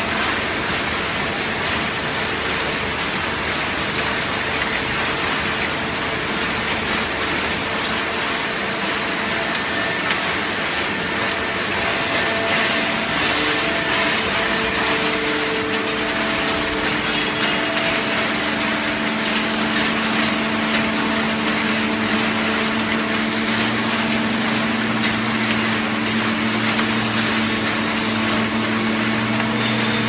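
Automatic horizontal hydraulic baler for cardboard (OCC) running: a steady, dense machine noise with a hydraulic pump's hum. Deeper hum tones come in and strengthen over the second half.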